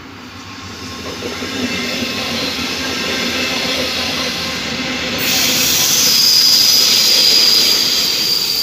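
Double-deck regional push-pull train passing close at speed: the rolling noise builds over the first couple of seconds and then stays loud. About five seconds in, a steady high-pitched squeal joins as the rear of the train, with its locomotive, draws near.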